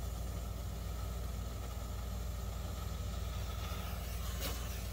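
Steady low mechanical hum with no change, and a faint click about four and a half seconds in.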